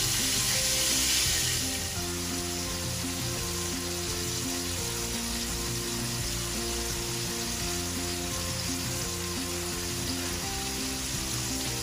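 Chopped beef frying in olive oil in a nonstick skillet, a steady sizzle that is louder for the first couple of seconds, with background music of short steady notes.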